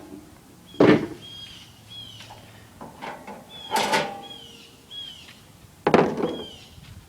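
Metal knocks and clanks from a tabletop gas grill being handled: three sharp hits, about a second in, near the middle with a brief metallic ring, and about six seconds in.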